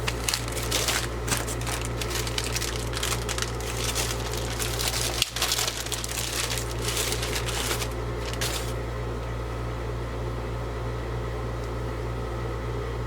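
Crinkling and crackling of plastic packaging as a new trimmer throttle cable is handled, stopping a little past halfway, over a steady low hum.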